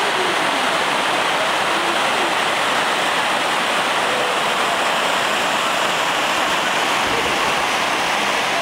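Creek water rushing down a steep rock cascade, a loud, steady white-water rush with no breaks.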